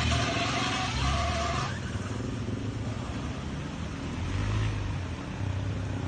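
Toyota 100 series LandCruiser engine running as the vehicle wades through a creek crossing, with water washing around it.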